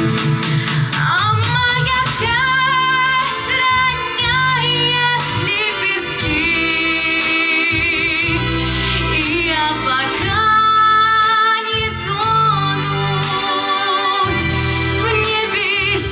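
A song performance: a female voice singing long held notes with vibrato over a recorded accompaniment with bass.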